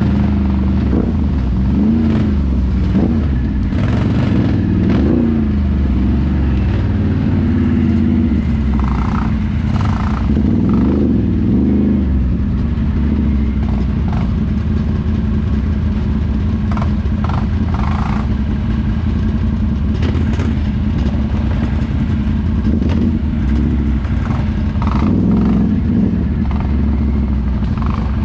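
ATV engine running at low trail speed, its revs rising and falling briefly a few times as the throttle is worked over rough ground.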